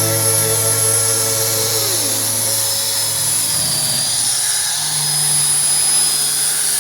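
An electric power tool's motor running steadily, its pitch sagging about two seconds in, then running on at a steady pitch.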